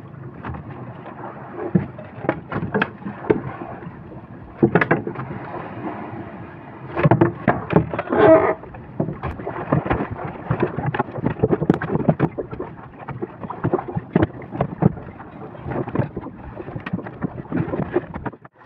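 Irregular knocks and clatter of a fisherman working a handline over the gunwale of a small fishing boat, with wind on the microphone and water noise underneath; the knocking is busiest about a third of the way in.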